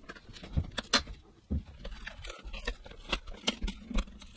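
Scattered light clicks, taps and scrapes as fingers and a metal pry tool work at the edge of the internet radio's thin stuck-down metal front grille panel, with a few soft knocks in the first couple of seconds.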